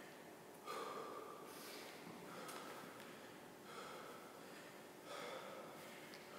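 Faint heavy breathing, several short breaths roughly a second apart.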